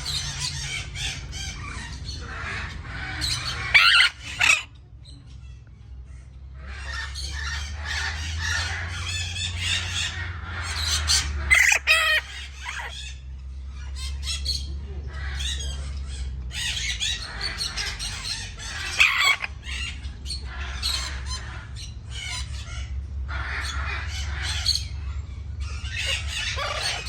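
Parrots squawking and chattering in dense bouts, with several loud harsh squawks standing out and short lulls between bouts, over a steady low rumble.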